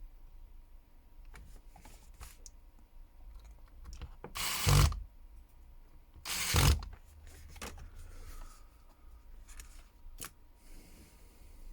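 Small repair tools working on a smartphone's internals: two short scraping bursts about two seconds apart, each lasting about half a second, with a few light clicks around them.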